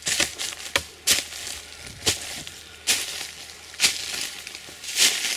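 Footsteps crunching through dry fallen leaves and twigs, about one step a second, six steps in all.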